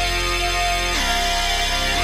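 Background music: a driving instrumental track with a steady bass line, its chord changing about a second in.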